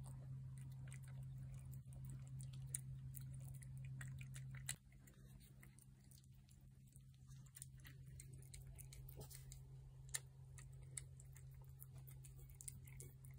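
Feral cats chewing and lapping wet cat food off plates, faint small wet clicks scattered throughout. A low steady hum underneath drops in level nearly five seconds in.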